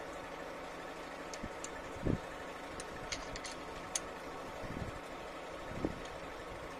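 Faint metallic clicks of a ring spanner and screwdriver working a rocker-arm adjusting screw and locknut on a six-cylinder truck diesel's valve gear while the valve clearance is being set, over a steady background noise. A couple of short dull thumps come at about two seconds and near the end.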